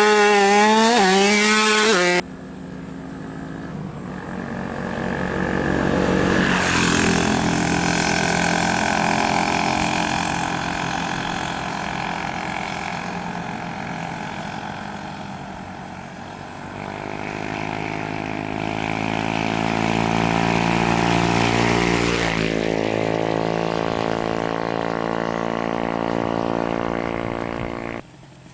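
Tuned 130cc two-stroke underbone motorcycle engine, loud, revved in quick blips. After a cut a couple of seconds in, it is held high in the revs with the pitch slowly swelling and easing. About three-quarters of the way through the pitch drops sharply, then the engine holds again.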